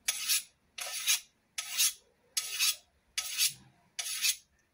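Hand file drawn along the steel blade edge of an old billhook, six even rasping strokes a little less than a second apart.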